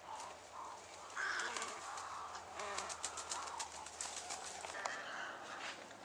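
Wild birds calling, short calls repeating with a run of rapid clicking in the middle.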